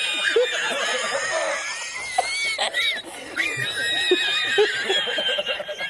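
Two men laughing hard. The laughter runs in long, high-pitched, squeaky squeals between breaths, and breaks off briefly about three seconds in.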